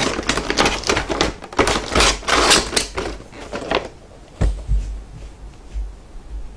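Clear plastic packaging crinkling and crackling as it is handled and folded, a rapid run of small crackles. About four and a half seconds in it gives way to a few low thumps of a cardboard box being handled on the table.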